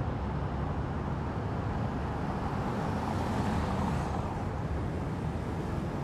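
City street traffic: a steady low rumble, with a car passing about three and a half seconds in, its tyre hiss swelling and fading.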